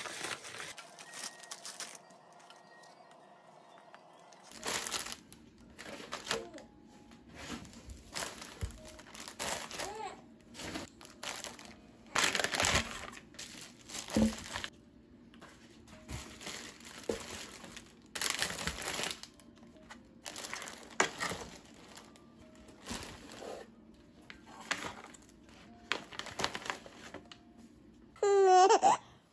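Crinkling and rustling in irregular bursts, with a brief high vocal sound sliding in pitch near the end.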